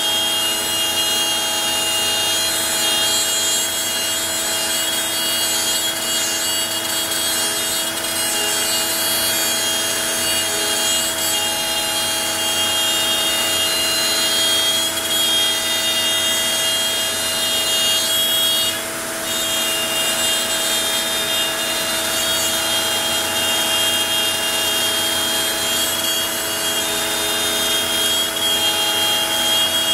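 Onefinity CNC router running steadily with its bit cutting, a constant hiss under several steady high tones. The high tones drop out for a moment about nineteen seconds in.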